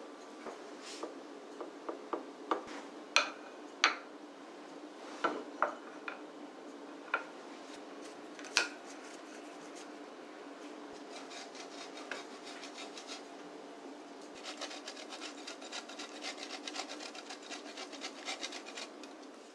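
Scattered light taps and clicks of food being set down on a wooden serving board. About fourteen seconds in, these give way to the quick, repeated rasping of cheese grated on a metal hand grater.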